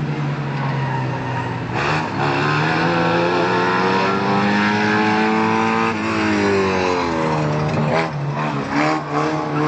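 Race car engines running hard as cars lap a figure-8 track. One engine note climbs steadily for a few seconds as the car accelerates, then falls away sharply about six seconds in as it lifts off, with other engines overlapping.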